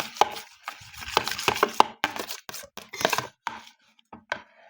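A spoon stirring a slime mixture in a container, clacking against its sides in a quick run of sharp knocks that thins to a few scattered taps near the end.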